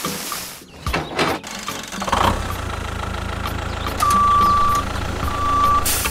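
Sand pouring out of a tipping trailer with a brief hiss, then from about two seconds in a tractor engine running steadily, with two long high beeps near the end.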